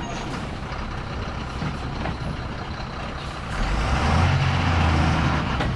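Ashok Leyland lorry's diesel engine running, then revving up harder about three and a half seconds in as the heavily loaded truck is worked around the hairpin bend.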